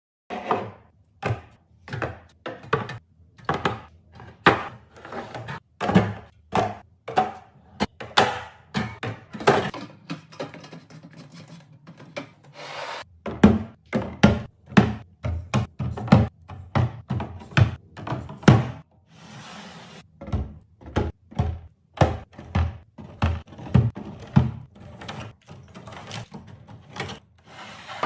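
Containers and groceries being handled and set down while a pantry or fridge is restocked: a quick run of knocks, taps and clatters, several a second, with some rubbing and sliding between them.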